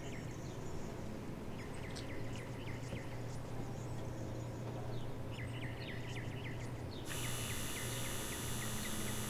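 Faint chirping in short, quick clusters over a low steady hum; a hiss comes in about seven seconds in.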